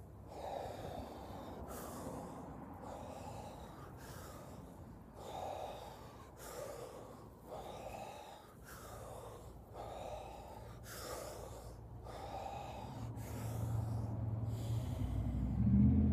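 A person breathing deeply and forcefully in a steady rhythm, about one breath a second, as a breathing exercise. A low hum grows in near the end.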